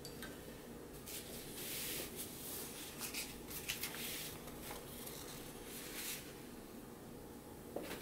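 Large sheet of painting paper rustling and crackling as it is lifted and turned round on the table, with a few sharp crinkles about three to four seconds in. A steady low room hum sits underneath.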